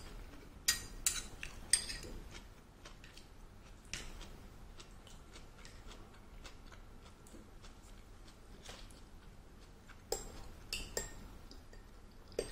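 Metal chopsticks clinking against a ceramic bowl: a handful of sharp clinks near the start and again near the end, with only the odd faint click in between.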